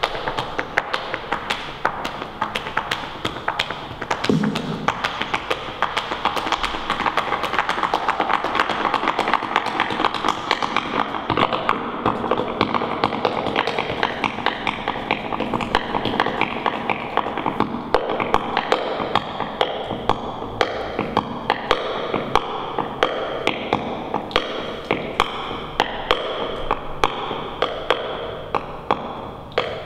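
Sharp percussive taps in the manner of flamenco footwork, rapid and dense for the first ten seconds or so, then settling into a slower regular beat of about one a second, over sustained live keyboard music.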